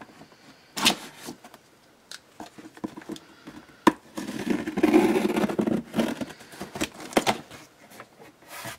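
A cardboard shipping box being opened: a folding utility knife slicing through the packing tape, with sharp clicks and knocks on the cardboard and a longer rasping cut about halfway through, then the cardboard flaps being pulled open.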